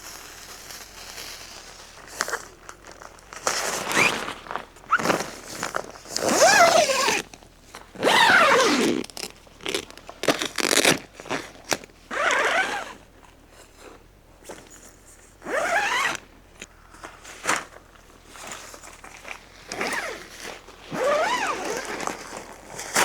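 Handheld sparklers burning, fizzing and crackling in repeated bursts with short lulls between. Some bursts carry a rising or falling whistle-like tone.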